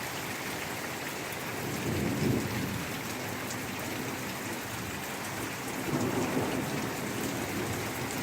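Heavy rain pouring down steadily, with two low rumbles of thunder swelling up, about two seconds in and again about six seconds in.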